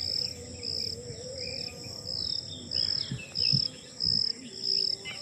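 Insects chirping in a steady high pulse about twice a second over a constant high whine, with scattered short bird chirps. A few low thumps come about halfway through.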